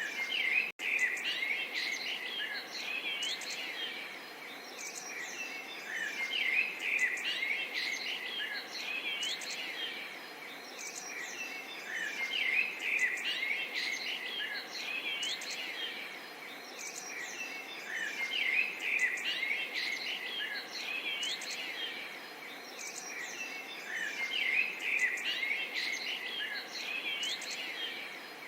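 A chorus of small songbirds chirping and twittering, swelling and easing in clusters about every six seconds, over a soft steady hiss of gently babbling water. The sound drops out for an instant less than a second in.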